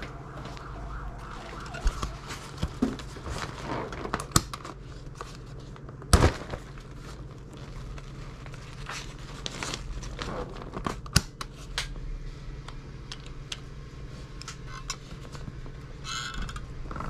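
Handling of a collapsible flash softbox: nylon fabric rustling and crinkling with sharp clicks and snaps of its plastic frame and mount, the loudest snap about six seconds in. A steady electrical hum runs underneath.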